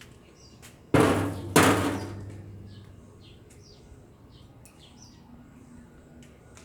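Arc welder striking two short welds about half a second apart: each starts suddenly as a loud burst of noise with a low hum, and both fade out within about a second. Faint bird chirps sound throughout.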